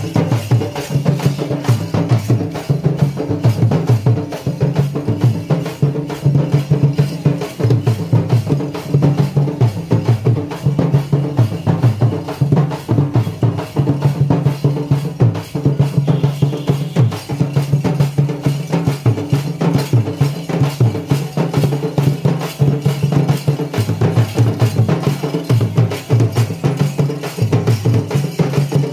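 Dimsa dance music: a fast, driving drum rhythm with a strong pulsing low beat under it.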